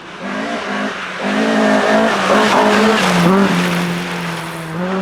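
Rally car engine revving hard and changing gear as the car passes, loudest about two to three seconds in.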